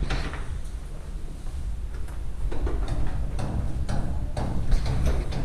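Steady low rumble of handling noise on a handheld camera's microphone, with rustling and scattered light clicks from someone putting on and fastening their shoes.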